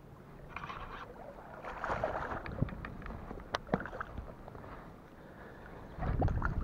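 Water splashing at the rod tip and lapping around a small fishing boat, with scattered sharp clicks. A louder low rumble comes in near the end.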